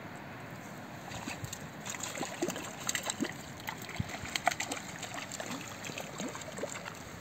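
A small hooked fish splashing at the surface in shallow water as it is reeled in to the shore: a run of irregular splashes and slaps starting about a second in, busiest in the middle.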